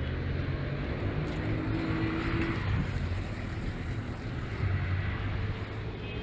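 Street traffic: car engines running close by, a steady low hum.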